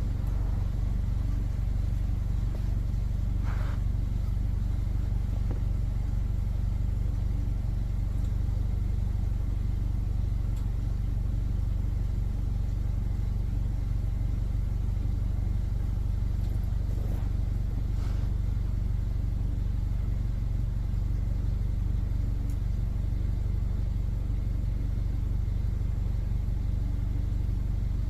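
Subaru Outback running in gear on stands, its rear hubs turning slowly without wheels: a steady low rumble in which the rear wheel bearings are making noise, which the owner takes to be worst on the passenger side.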